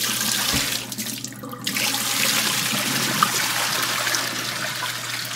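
Cloudy lime rinse water being poured out of a bowl of cut pumpkin into a stainless steel sink, splashing steadily onto the drain. The flow dips briefly about a second and a half in, then runs on.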